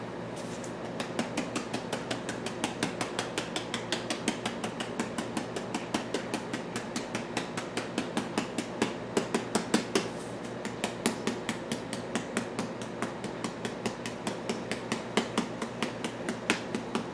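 Rapid light tapping, several sharp taps a second, with a brief pause about ten seconds in, over a steady low hum.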